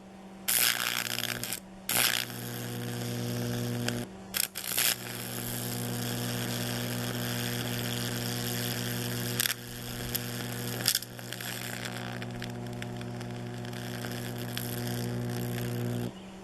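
Homemade arc furnace melting aluminium in a crucible: a steady electrical hum and buzz, with loud crackling bursts several times as the arc strikes and flares.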